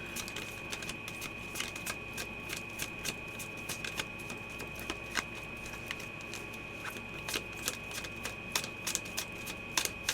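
Tarot cards being shuffled and handled: a run of irregular, light, sharp clicks and flicks of card stock, several a second.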